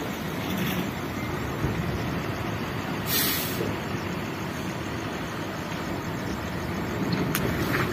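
Heavy truck running with a steady low rumble, and a short hiss about three seconds in.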